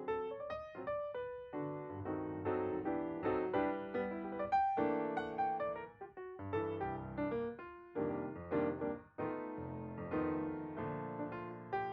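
Background piano music: a gentle, continuous melody of plucked-sounding piano notes.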